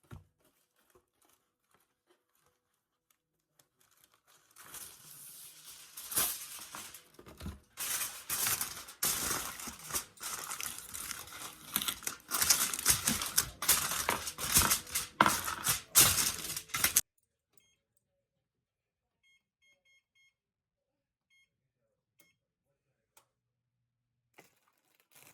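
Plastic food packaging crinkling and tearing as pork chops are unwrapped, a long stretch of rustling with sharp crackles that stops suddenly. Then a few short electronic beeps from an oven's control panel as the temperature is set.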